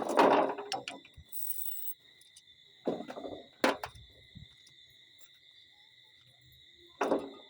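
Steady, high-pitched trill of night insects such as crickets, broken by a few louder sudden noises: one at the start, another about three seconds in with a sharp click after it, and one near the end.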